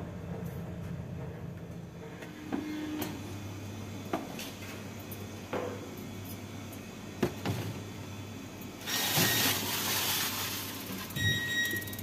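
Aluminium sheet tray being handled and slid into a deck oven over a low steady hum: scattered knocks and clicks of metal, a longer scraping rush about nine seconds in, and a clank with a brief metallic ring near the end.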